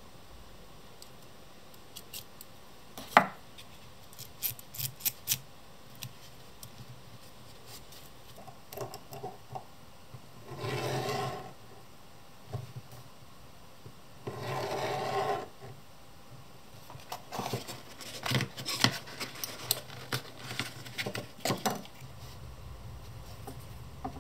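Metal hand tools handled on a table: sharp clicks and taps, the loudest about three seconds in, then twice a rasping scrape of about a second each as a divider's steel point is drawn along a piece of leather to mark a line parallel to its edge, followed by a run of small clicks and knocks.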